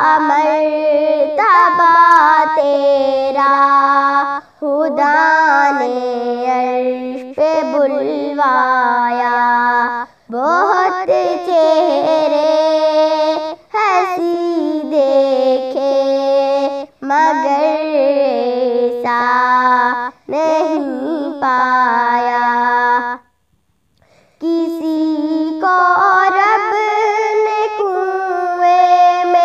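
A girl singing an Urdu naat, a devotional song in praise of the Prophet Muhammad, solo and unaccompanied. She sings long, ornamented phrases with short breath pauses between them, and stops for about a second near the end before going on.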